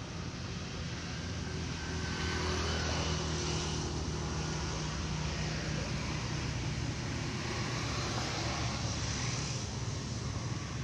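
A steady engine drone over a broad hiss, swelling a little about two seconds in and then holding.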